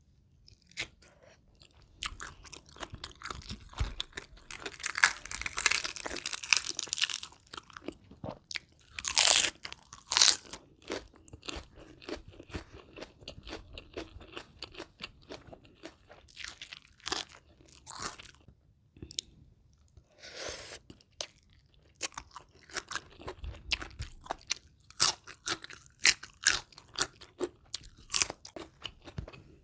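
Close-up eating sounds: bite after bite of crisp-battered fried chicken crunching loudly and irregularly while being chewed, with a dense run of crunches in the first third.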